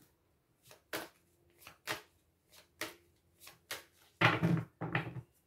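A deck of oracle cards being shuffled and handled: about eight short, sharp card snaps and taps, spaced irregularly over the first four seconds.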